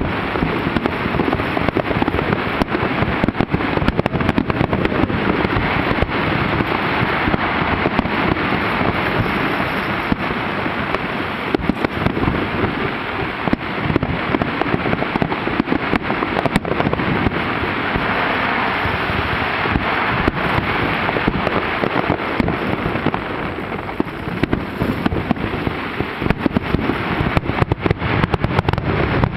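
Fireworks display: aerial shells bursting and crackling in a dense, continuous barrage, the reports so rapid that they run together with no pause.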